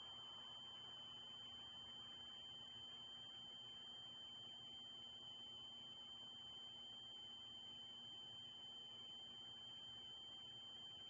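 Near silence: a steady faint hiss with an unbroken high-pitched electronic tone and a faint low hum, electrical noise from a nest camera's audio line.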